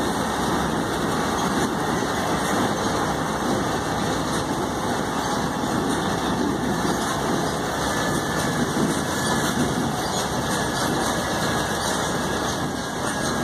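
Open-sided tourist road train running along a cobblestone street: a steady mix of its engine and tyre noise on the cobbles, heard from the passenger carriage.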